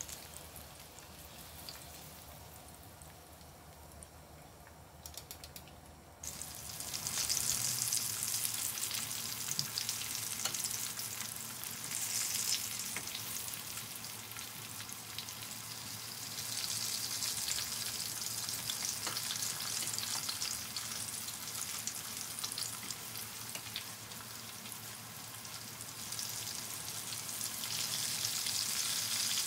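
Oil sizzling as batter-coated enoki mushroom clusters deep-fry in a pan. The sizzle is quieter at first, with a few light clicks around five seconds in. About six seconds in it jumps suddenly louder as fresh battered clusters go into the hot oil, then keeps sizzling strongly.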